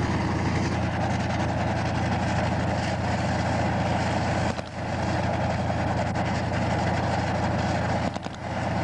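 T-72B tank's V-12 diesel engine running steadily, heard from inside the tank, with two brief dips in level, about halfway through and near the end.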